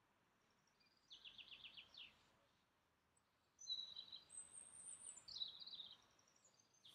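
Faint songbirds singing. A quick run of repeated high notes comes about a second in, then a longer phrase of high whistles and a falling trill from about three and a half seconds.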